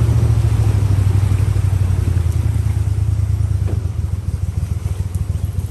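Gator Tail surface-drive mud motor pushing a crawfish skiff through shallow swamp water: a steady, low, rapidly pulsing engine drone that eases off slightly about four seconds in.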